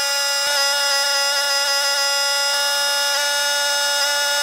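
Pressure washer running steadily while spraying concrete-pump hose: a constant high buzzing whine over the hiss of the water jet, with a few faint knocks.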